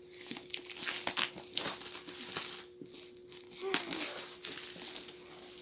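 Plastic shrink-wrap being pulled and crumpled off a laptop box: a run of irregular crinkling and tearing rustles that thins out after about three seconds.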